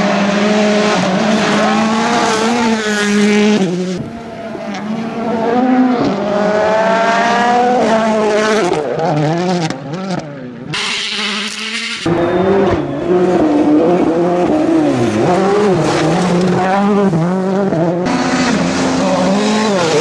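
World Rally Cars' 1.6-litre turbocharged four-cylinder engines revving hard at speed on gravel stages, the pitch rising and falling through gear changes as cars approach and pass. The sound jumps abruptly between passes several times.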